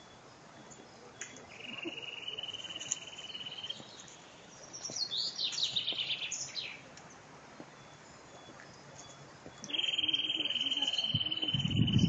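Songbirds singing: a long trill held on one steady high pitch, a quick run of falling notes about halfway through, then the steady trill again, louder, near the end.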